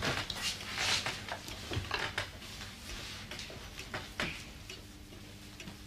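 Light clatter of crockery bowls being handled, with scattered soft knocks and shuffling as people move about a small room.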